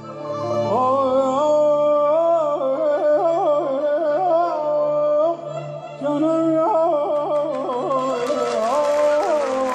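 Elderly male Persian classical vocalist singing into a microphone: a sustained, ornamented line with quick warbling turns over a held low accompanying note, breaking off briefly just past the middle. Applause begins near the end.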